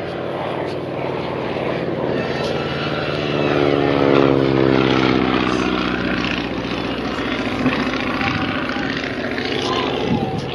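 Propeller airplane flying past overhead, its engine drone falling in pitch as it goes by, loudest about four seconds in.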